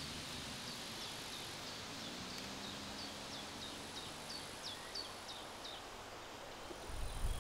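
Outdoor ambience with a steady hiss, in which a small bird repeats short, high, falling chirps about three times a second. Near the end a low bumblebee buzz rises.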